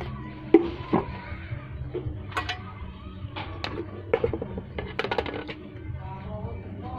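Kitchenware and a plastic jug being handled: scattered knocks and clinks, with a quick run of light clicks about five seconds in.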